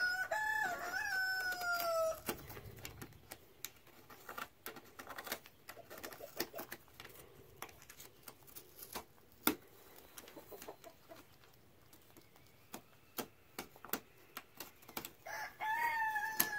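A rooster crowing twice, one call about two seconds long at the start and another near the end, each sliding down in pitch as it ends. Between the calls, faint scattered clicks and scraping from a hand deburring tool cleaning fiberglass strands out of a drilled hole.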